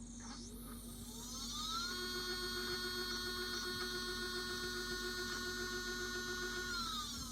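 HEQ5 Pro equatorial mount slewing, its stepper motors and gearing giving a whine that rises in pitch as it speeds up, holds steady, then falls near the end as it slows to a stop. The owner calls the slewing noise loud since rebuilding the mount.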